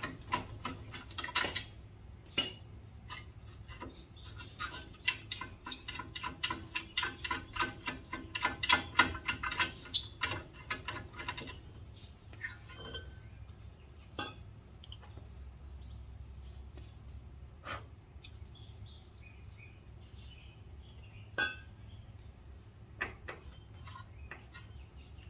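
Socket ratchet clicking fast in runs as the brake caliper bracket bolts are backed out, then a few single metallic clinks and knocks as the loosened bracket and rotor are handled.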